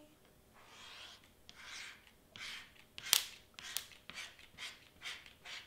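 Stiff cardstock rustling and scraping as it is lifted, handled and pressed down while hot glue is laid on it. There is a sharp click about three seconds in, then a run of short scrapes about twice a second.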